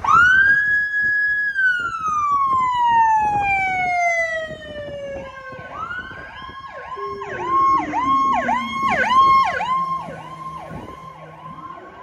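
Electronic sirens on fire chiefs' Chevrolet Tahoe response SUVs pulling away. A siren shoots up at the start, holds, then slides slowly down; from about six seconds in it changes to a quick yelp, rising and falling about twice a second, with a second siren overlapping.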